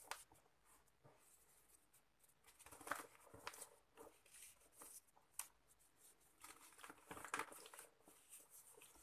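Soft sand-cement crumbling between fingers, its grains and crumbs pattering into a tub of water in short, irregular spells, with sharper crunches about three seconds in and again after seven.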